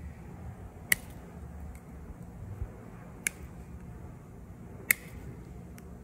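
Sharp clicks of a metal pick against the plastic of a female Deutsch connector as it is worked into the connector's internal lock: three separate clicks a couple of seconds apart, over a low steady hum.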